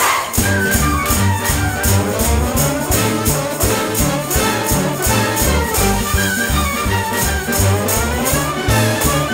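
Background music: an instrumental passage with brass and a steady beat.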